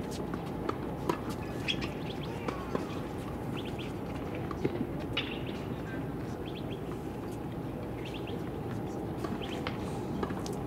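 Small birds chirping in short bursts every second or two over a steady low background hum, with a few faint clicks scattered through.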